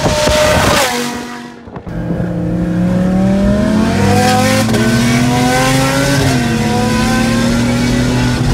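Car engine accelerating hard, heard from inside a vehicle's cabin: its pitch climbs steadily, drops once at an upshift about six seconds in, then holds steady.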